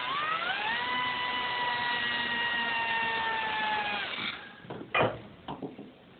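Small high-speed power tool with a cutting wheel whining as it spins up, then running steadily while cutting through a steel handcuff, and winding down about four seconds in. Two sharp knocks follow near the end.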